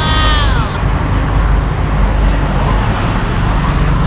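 Steady road-traffic rumble from passing vehicles, with a brief falling tone in the first second.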